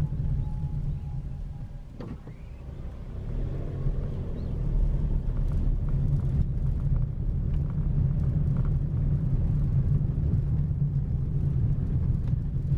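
A car driving along a road: steady engine and road rumble, easing off briefly about two seconds in, then building up again.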